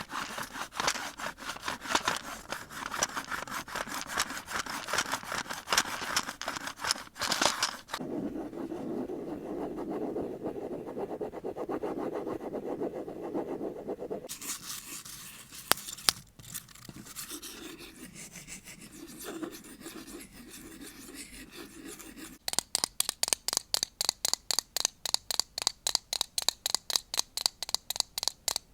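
A series of close-up scratching and rubbing sounds on objects, changing texture every several seconds, with two sharp clicks in a quieter stretch midway. In the last six seconds this gives way to a steady run of quick strokes, about four a second.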